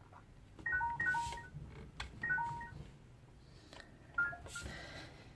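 Whirlpool WTW7500GC washing machine control panel beeping as its buttons and settings are changed: three quick groups of short electronic beeps, with faint clicks of the controls.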